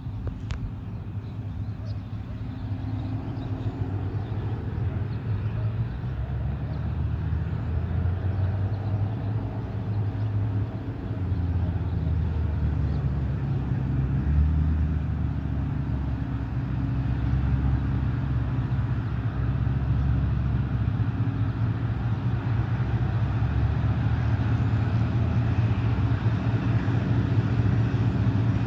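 Low, steady diesel engine rumble with a hum, slowly growing louder: a diesel locomotive approaching before it comes into view.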